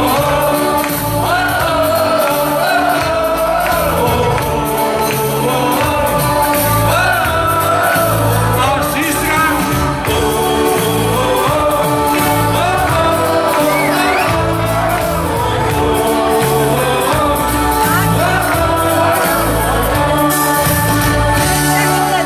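Live band music from a keyboard with a steady beat, and a singer carrying the melody over it.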